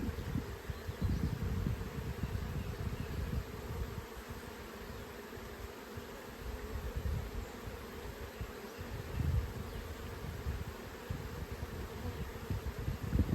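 Honeybees buzzing steadily around an open beehive during a frame inspection, with an irregular low rumble underneath.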